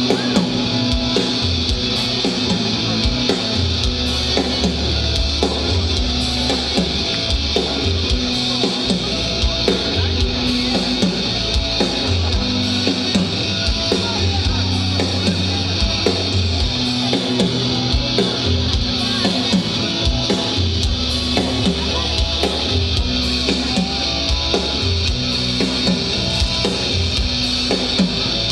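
Live rock band playing an instrumental passage on electric guitars and drums, heard through a stadium PA system from the crowd, steady and without a break.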